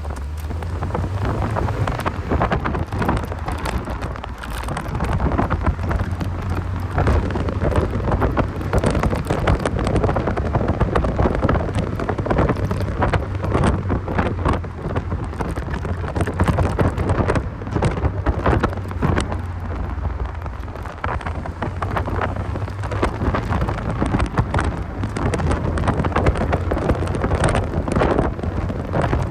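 1990 Mazda Miata (NA) being driven: its 1.6-litre four-cylinder engine and road noise drone steadily under heavy wind buffeting on the microphone, with constant crackling.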